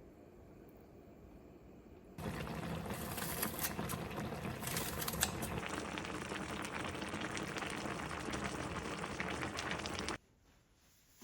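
Food cooking on the stove: a dense bubbling and crackling that starts abruptly about two seconds in, after faint room tone, and cuts off sharply near the end.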